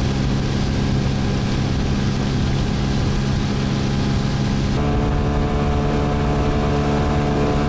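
Motorboat engine running steadily under way, a loud even drone of engine tones with a hiss over it. About five seconds in, the sound switches abruptly to a different, more clearly pitched engine note.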